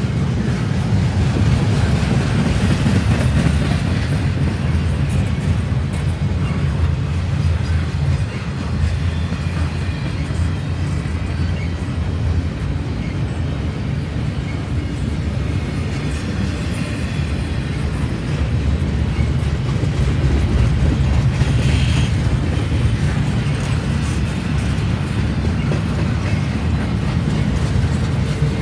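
Double-stack intermodal well cars loaded with containers rolling steadily past: a loud, continuous rumble of steel wheels on rail.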